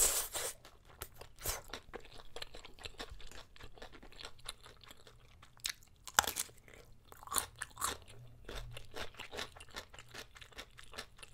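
Chewing with many small crunches throughout, growing louder and crisper about six seconds in as a piece of chonggak (ponytail radish) kimchi is bitten and crunched.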